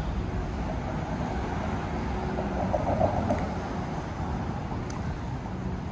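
City street ambience: a steady low rumble of traffic, with a brief louder passing sound about halfway through.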